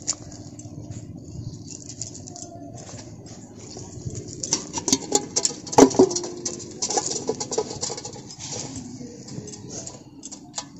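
Wet cast net being hauled and gathered on brick paving: the mesh rustles, and a dense run of sharp taps and clicks comes in the middle, loudest about six seconds in, as the net's weighted edge knocks on the bricks.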